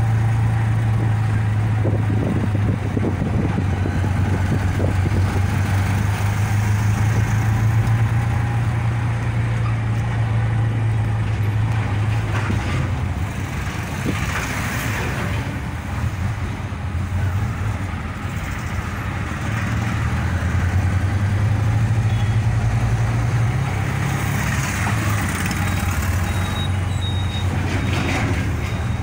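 Engine of a moving vehicle heard from inside while riding, a steady low hum with road and wind noise. The engine note drops a little under halfway through and picks up again a few seconds later as the vehicle slows and speeds up.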